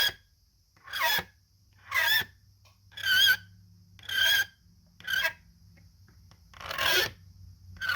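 Contact points of an ignition relay being scraped clean, a rasping stroke about once a second with a slight squeak, to remove the pitting from the burnt points.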